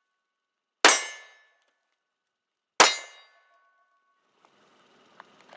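Two 9mm Glock 19 pistol shots about two seconds apart, each a sharp crack that dies away with a short metallic ring. Faint small clicks follow near the end.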